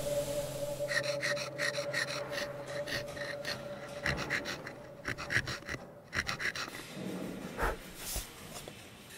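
Hand checkering tool cutting lines into a wooden shotgun stock: a run of short scraping strokes, about three a second, under a fading musical drone.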